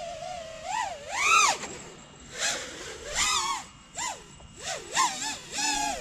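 FPV quadcopter's motors and propellers whining, the pitch swooping up and down about eight times as the throttle is punched and eased while it flies close in to land.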